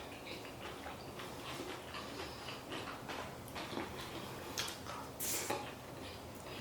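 A person eating close to the microphone: soft chewing and mouth noises with scattered small clicks, and a brief hiss about five seconds in.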